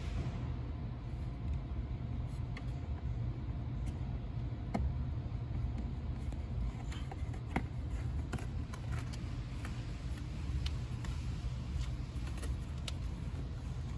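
Steady low rumble, with scattered light clicks and taps from fingers working on the plastic dashboard trim around a Toyota 4Runner's instrument cluster.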